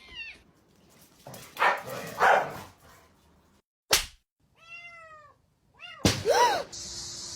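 A cat meowing: a few short calls that rise and fall in pitch in the second half, after a sharp knock about four seconds in. Two harsher, noisy sounds come about two seconds in.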